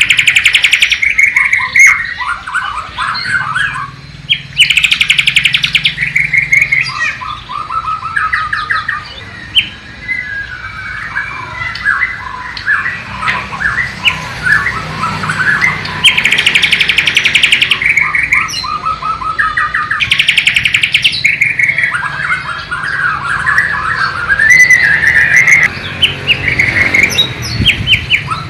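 White-rumped shama of the Borneo race singing a long, varied song of chattering and whistled phrases, broken by several fast rattling trills, with phrases it has learned from the nightingale (sikatan londo).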